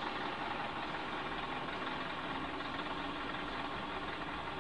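A car's engine running at low speed, heard from inside the cabin as a steady hum with no sudden events.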